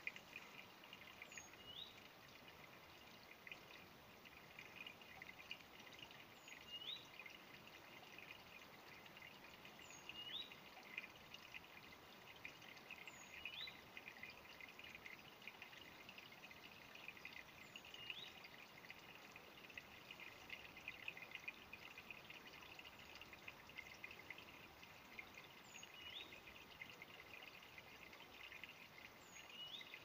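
Faint trickle of a small, shallow stream, with a bird repeating a short rising call every few seconds.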